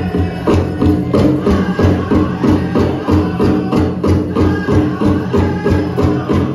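Powwow drum group singing a chicken dance song: a large shared drum struck in a steady, fast beat under the singers' voices.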